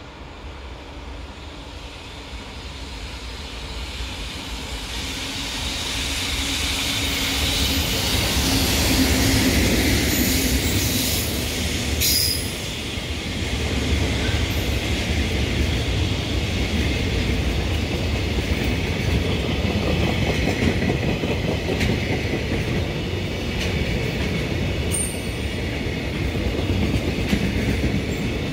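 Freight train approaching and rolling past. It grows louder over the first several seconds, then holds steady with wheel clatter over the rail joints and a high wheel squeal.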